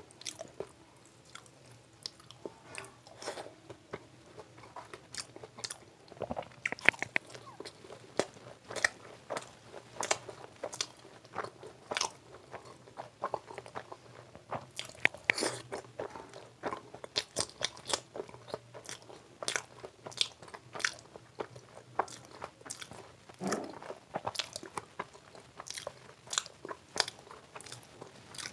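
A person chewing mouthfuls of puri (deep-fried Indian bread) dipped in curry, close to the microphone, with many short, irregular wet smacks and crunchy clicks of biting and chewing.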